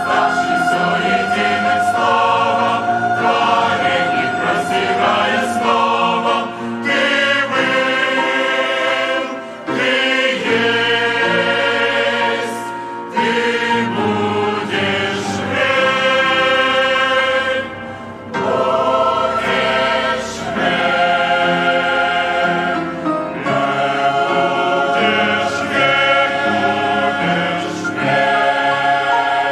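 Large mixed choir of men's and women's voices singing a hymn in Russian, in sustained chords phrase by phrase, with short breaths between phrases.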